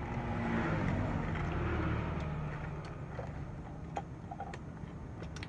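A motor vehicle's engine running past, its low rumble swelling over the first couple of seconds and then fading. A few light clicks come near the end.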